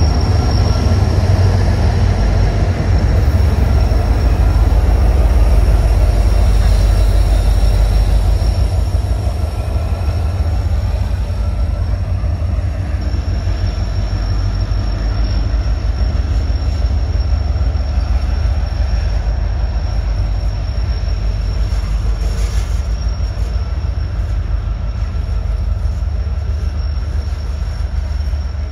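A train rolling past with a loud, steady low rumble and a thin, high, steady squeal from its wheels on the rails; the rumble eases off after about eight seconds.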